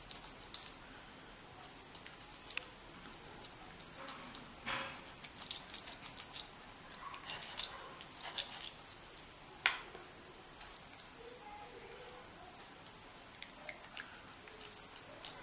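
Scattered small clicks, taps and wet scrapes of a metal spoon scooping masala paste and spreading it into the cuts of a whole raw fish, the spoon now and then knocking against the steel bowl, sharpest about halfway through and again just under five seconds in.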